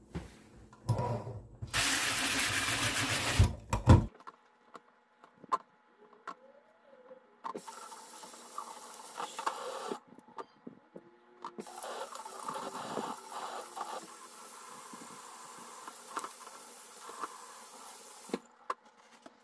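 Kitchen tap water running hard into a plastic colander in a stainless steel sink, cut off suddenly about four seconds in. After that, softer runs of water with scattered taps and clicks as hands handle and rinse pieces of chicken of the woods mushroom.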